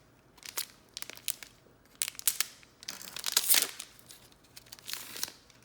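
Foil trading-card pack wrapper crinkling in irregular bursts as it is handled and torn open, loudest a little past the middle.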